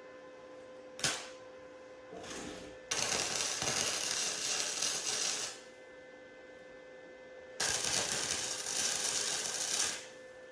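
Flux-core wire-feed welder arc crackling as tack welds go onto a steel truck frame: two crackling runs of about two and a half seconds each, after a sharp click about a second in and a brief sputter.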